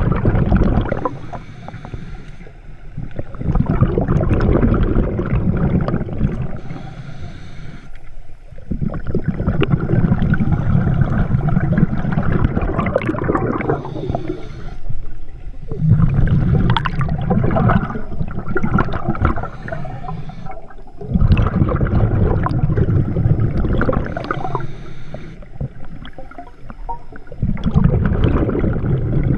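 Scuba diver breathing through a regulator underwater: long gurgling rushes of exhaled bubbles alternate with quieter inhale pauses, a cycle every five to seven seconds.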